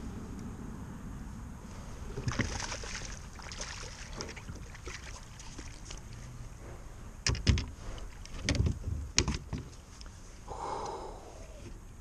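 Water splashing as a hooked bass is scooped into a landing net beside a kayak, then several sharp knocks as the net and fish come aboard against the kayak's hull.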